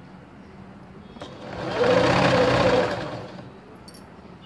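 Domestic electric sewing machine running one short burst of stitching, about a second and a half long, speeding up and then slowing to a stop as fabric is fed under the presser foot.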